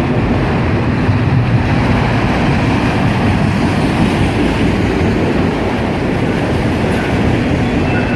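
Norfolk Southern freight train cars rolling past: a loud, steady rumble and rattle of steel wheels on the rails.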